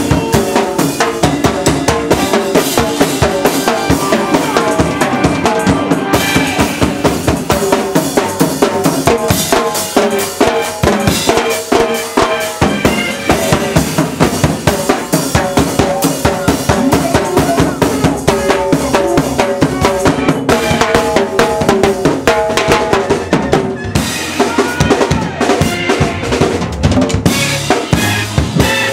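Live band instrumental: a drum kit and sticks-played percussion keep up a busy, driving groove with a steady kick and snare, while keyboard lines sound over the drums.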